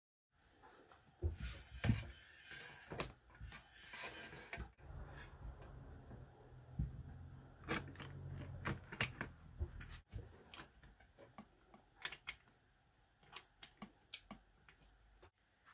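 Handling noises as a lamp cable and metal bulb socket are fitted into a black sheet-metal ring: irregular light clicks and taps, with rustling and a low rumble in the middle stretch.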